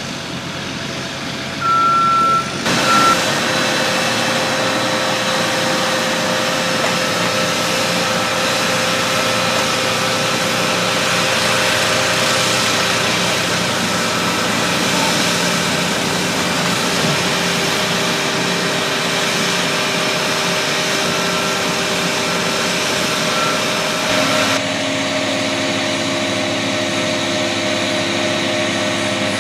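Caterpillar AP1000D asphalt paver's diesel engine running steadily under work. It gets louder about three seconds in and its note changes about 24 seconds in. A high single-pitched beep sounds about two seconds in, followed by a short one, and a few more short beeps come near the end.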